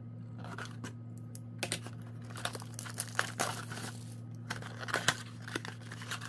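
A cardboard trading-card blaster box being slit open with a folding pocket knife and then handled, its flap pulled open: scattered scrapes, crinkles and light taps of blade and fingers on thin card.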